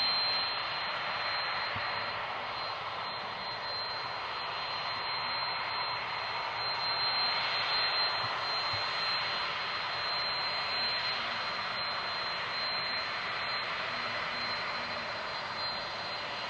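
Jet aircraft engines running: a steady rushing noise with a thin high whine, swelling slightly about halfway through.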